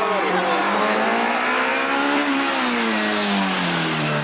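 Rally car engine revving hard at speed, its pitch climbing for about two seconds and then falling away as the driver comes off the throttle, before picking up again near the end.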